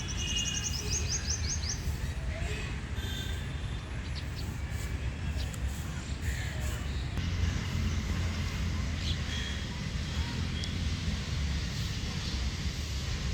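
Birds calling: a quick run of high, rapidly repeated chirps in the first two seconds, then scattered calls, including crow-like caws, over a steady low rumble.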